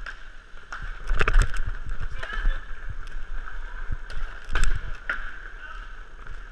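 Inline skates rolling on an indoor sport-court floor, with a steady rush of motion noise on a body-worn camera. Sharp clacks of hockey sticks and puck on the floor come in a cluster about a second in and again around four and a half seconds in.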